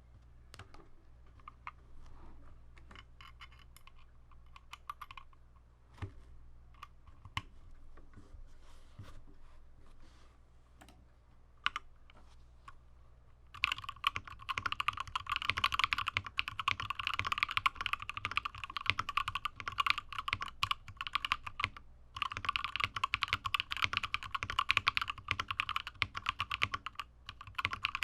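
Mechanical keyboard with KTT Rose linear switches on a carbon fibre plate, in an aluminium case, being typed on. It starts with scattered single keystrokes, then turns to fast continuous typing about halfway through, with a brief pause.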